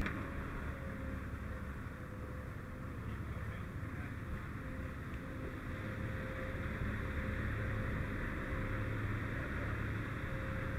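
Fire engine's diesel running steadily to drive its pump, a low hum with a steady tone, under a steady hiss.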